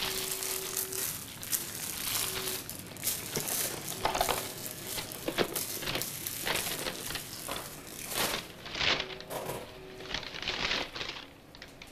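Paper wrappers, napkins and a paper bag crinkling and rustling as they are handled, in irregular bursts.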